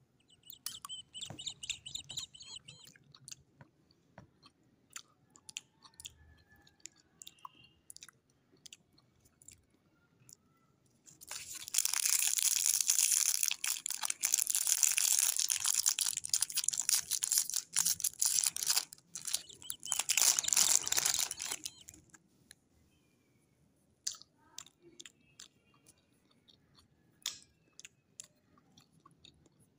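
Clear plastic wrapper crinkling as it is peeled off a swirl lollipop. About ten seconds of dense crackling in the middle, with scattered small crinkles and taps before and after.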